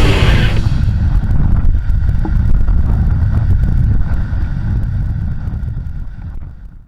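Squall wind buffeting a trail camera's microphone: a loud, low, gusting rumble that fades out at the end.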